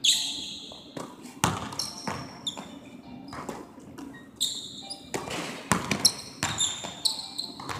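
Basketballs bouncing on a hardwood gym floor, a dozen or so echoing thuds at irregular intervals, mixed with short high sneaker squeaks, in a large empty gym.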